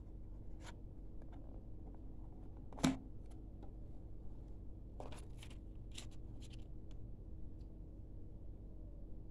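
A smartphone being set into its cardboard box tray by hand: light taps and scrapes, one sharper knock about three seconds in, and a run of small clicks around five to seven seconds in, over a faint steady hum.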